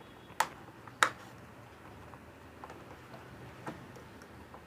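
Two sharp plastic clicks about two-thirds of a second apart, then a few faint ticks: a rocker switch being pried out of a multi-socket power strip's plastic casing.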